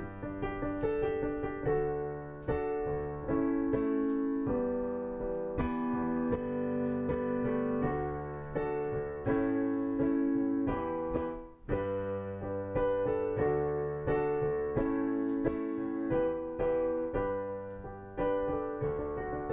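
Background piano music, chords and melody notes moving at an even pace, with a brief break about halfway through.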